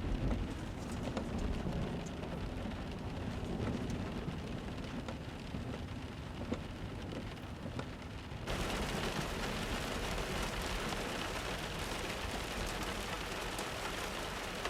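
Steady background noise, a hiss over a low rumble. About eight and a half seconds in it switches abruptly to a brighter hiss.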